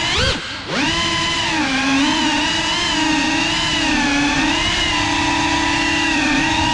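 GEPRC CineLog35 cinewhoop's brushless motors and ducted propellers whining in flight. The pitch dips sharply and recovers about half a second in, then holds a steady whine that wavers slightly up and down.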